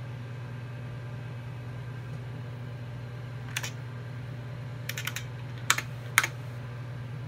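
Keys pressed on a computer keyboard to move through a diagnostic menu: about seven sharp clicks in the second half, the last two the loudest. Under them runs the steady hum of the running IBM PC XT.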